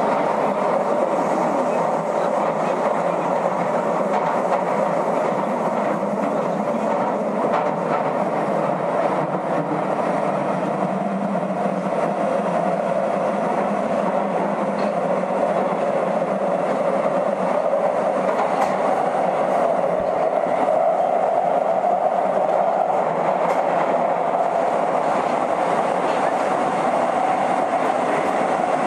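Nagoya Municipal Subway 2000 series train, IGBT-inverter retrofit, running steadily in the tunnel between stations, heard from inside the car: a continuous running noise of wheels on rail at an even level.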